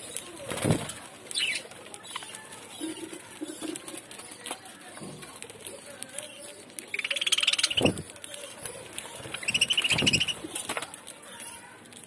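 A flock of budgerigars chattering softly while feeding on coriander leaves, with two loud, harsh buzzing calls of about a second each, roughly seven and nine and a half seconds in. Low thumps come near the start and again about eight seconds in.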